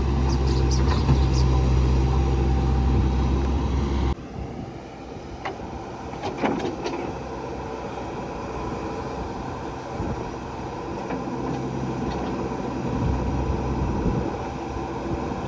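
Heavy diesel machinery engine running loudly, then an abrupt drop about four seconds in to a quieter, steadier engine drone with a few short knocks.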